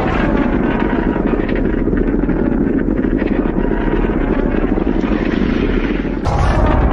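A harsh, rattling monster sound effect held steadily, changing near the end to a louder, brighter sound.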